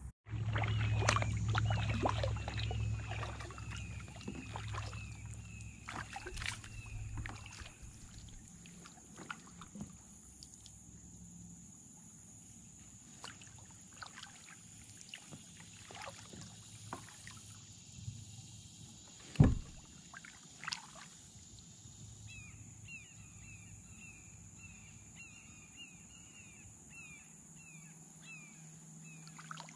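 Kayak paddling on calm water: small drips and splashes from the paddle, with a low rumble fading out over the first several seconds and one hard knock against the kayak hull about two-thirds through. A bird repeats a short high call about twice a second at the start and again near the end, over a steady faint high tone.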